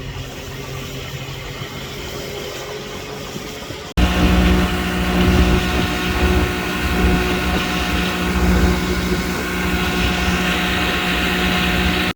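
Fishing boat's engine running with a steady hum; about four seconds in it cuts abruptly to a louder, deeper engine drone.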